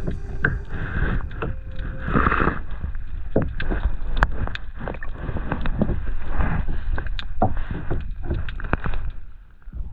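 Water slapping and knocking against a small boat's hull, with irregular sharp knocks and a brief louder splash about two seconds in, over a steady low rumble.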